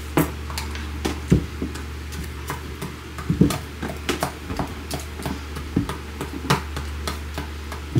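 Irregular light knocks and taps of cucumbers and peels being handled and set down on a plastic cutting board, over a steady low hum.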